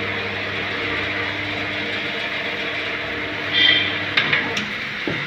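Roadside traffic noise with a vehicle engine humming steadily, stopping about four seconds in, followed by a few sharp clicks.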